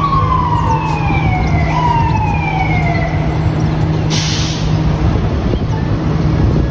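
Emergency vehicle siren gliding down in pitch, jumping back up and falling again about every second and a half, then stopping about three seconds in. Underneath is a steady low drone of vehicle engines and street traffic, with a short hiss about four seconds in.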